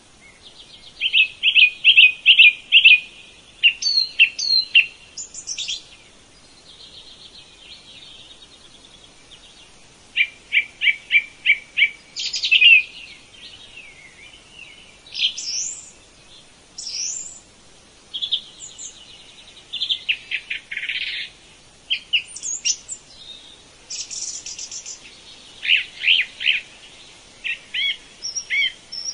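Songbirds singing: a series of phrases, each a quick run of repeated chirps or a trill, with short pauses between them.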